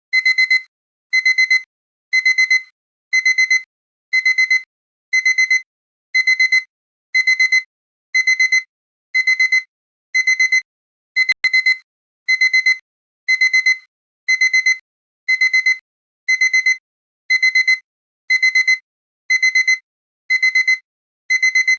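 Digital timer alarm beeping: groups of four quick high-pitched beeps, repeated about once a second. It signals that the countdown has reached zero.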